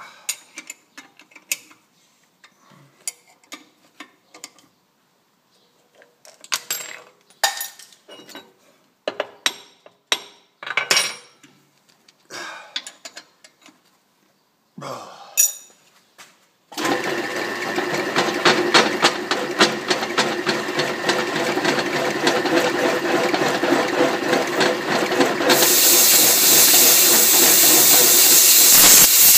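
Wrench and metal clanks while the part and fixture are adjusted, then about 17 s in a milling machine spindle starts and runs steadily with a boring bar cutting into the iron linkage arm. About 26 s in a loud hiss from the nozzle aimed at the cut joins.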